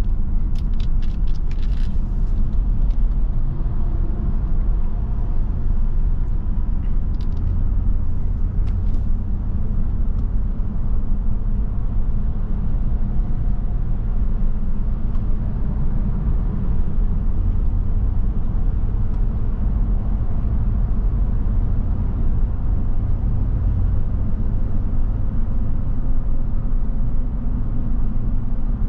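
Steady low rumble of a car-hauler truck on the move: engine drone and road noise, with a quick run of clicks at the start.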